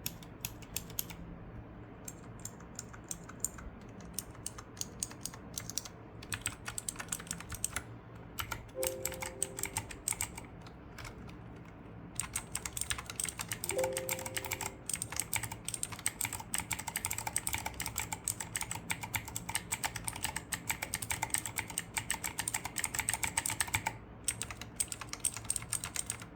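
Typing on mechanical keyboards as a sound comparison, including the MageGee one-handed keyboard's clicky blue switches. Slow, scattered keystrokes give way about twelve seconds in to fast continuous typing, which breaks off briefly near the end and resumes. A short tone sounds twice in the first half.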